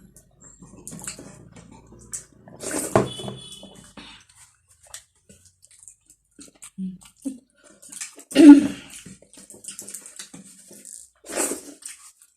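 Close-up eating sounds: chewing and mouth noises with scattered small clicks, a short ringing clink about three seconds in and a louder sudden sound about eight seconds in.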